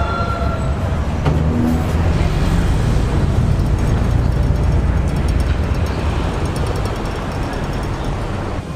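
Ferry engine running with a steady low rumble, easing off slightly near the end.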